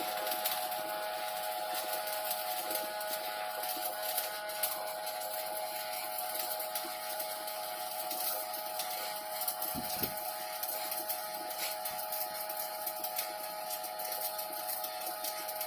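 Shielded metal arc (stick) welding on carbon steel pipe: the arc's steady crackle with frequent small pops, over a steady hum.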